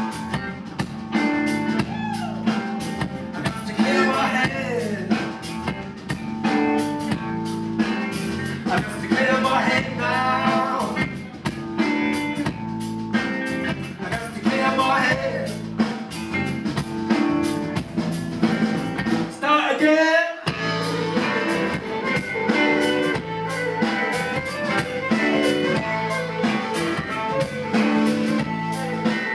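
Live band playing a heavy funk-blues groove on electric guitar, bass guitar and drum kit, with a man singing phrases over it. About twenty seconds in the bass and drums drop out for a moment under a sliding sung note, then the full groove comes back.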